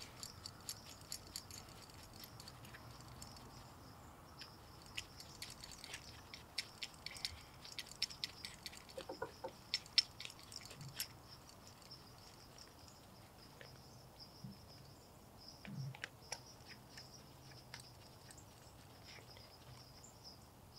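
Faint, irregular light clicks and ticks of small metal parts as gloved hands seat a replacement snowblower carburetor and work its choke linkage, thickest in the first half and sparser later, over a steady faint high-pitched hiss.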